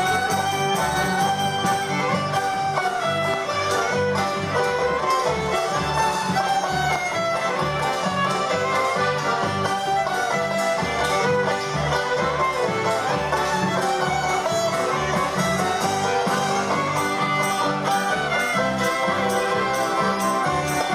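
Ukrainian band playing a polka live: fiddles carry the melody over accordions and acoustic guitar, with a hand-held drum and cymbal keeping a steady, even beat.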